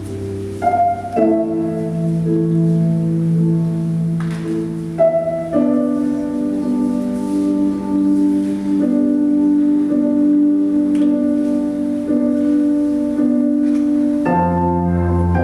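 Slow instrumental dance score of held, sustained chords that change every few seconds, with a few bell-like struck notes over them; a deeper bass chord comes in near the end.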